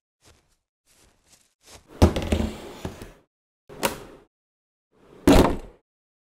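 Green Bosch hard plastic drill case being handled and opened: a heavy thud about two seconds in with a short rattling tail, then two shorter clunks about a second and a half apart.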